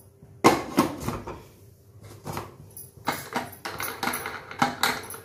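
Pressure cooker lid being fitted and closed: a series of metal knocks and clatters, the first sharp one about half a second in and a cluster of louder ones near the end.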